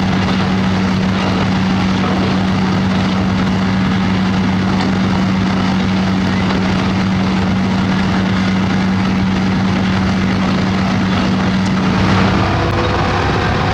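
Heavy diesel construction machinery running steadily with a strong engine hum. Near the end the hum cuts out and a few rising tones follow, as the engine speed changes.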